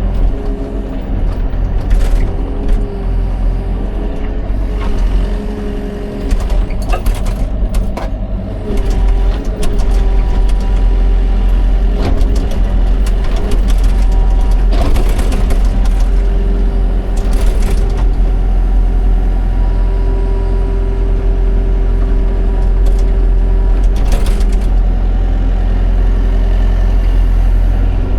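Excavator's diesel engine and hydraulics working: a heavy steady rumble whose pitch dips and steps as the load changes. Several short noisy bursts are spread through it.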